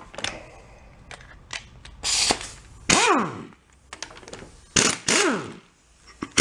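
Pneumatic impact wrench hammering on an engine's flywheel nut in four short bursts. After most bursts the air motor's whine falls in pitch as it spins down.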